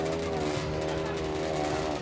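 Snowmobile engine running at steady high revs, its pitch wavering slightly.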